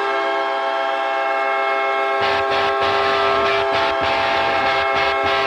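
Winnipeg Jets' hockey goal horn blowing one long, steady held note. About two seconds in, a rough, noisy layer joins underneath it.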